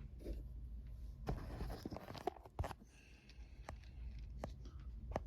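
Faint scattered clicks, taps and light knocks of small objects being handled, with a few sharper knocks around one and two and a half seconds in.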